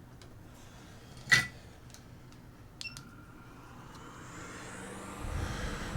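A sharp knock about a second in and a short tick-and-beep a little later, then a hot-air rework station's blower starting: a rising airy hiss with a steady low hum that grows toward the end, as the hot air begins heating the fluxed, stencilled chip.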